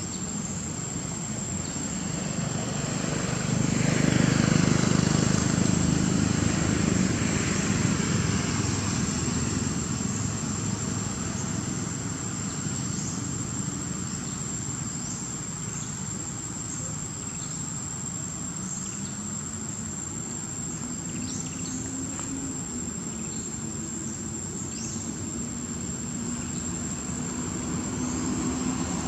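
Outdoor ambience of a steady high-pitched insect drone. A motor engine passes, swelling to its loudest about four to seven seconds in, and a lower engine hum rises in pitch near the end.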